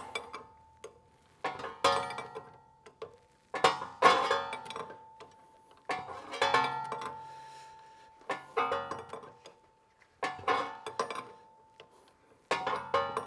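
Wrench clinking on steel hydraulic hose fittings as they are tightened in a cramped spot on a loader valve. Clusters of sharp metallic clinks come about every two seconds, often in pairs, each leaving a short ringing tone.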